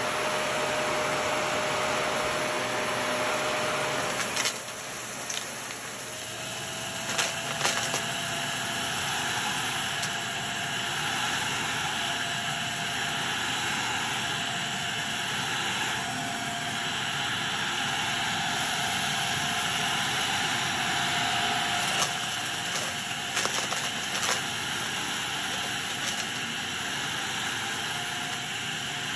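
Shark Navigator DLX upright vacuum running on carpet, a steady motor noise with a thin whine that steps slightly higher about five seconds in. Scattered sharp clicks and rattles come as grit and small bits are sucked up the nozzle.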